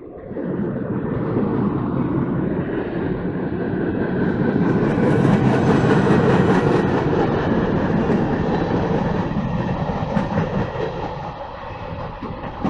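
CSX freight train passing at track speed: steel wheels rolling on the rails with a fast run of knocks. The noise builds over the first two seconds and stays loud.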